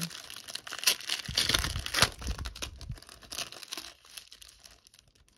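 Clear plastic cello sleeve crinkling and tearing as it is pulled open by hand. The crackling is densest in the first three seconds and fades out about four seconds in.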